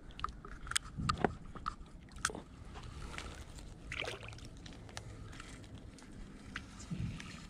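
Light water sloshing from a pike stirring at the surface with a hooked bait fish in its jaws, with scattered small clicks and a few soft knocks from rod and spinning-reel handling.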